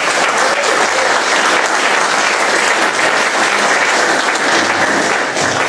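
An audience of men clapping, a steady round of applause for a speaker who has just been introduced.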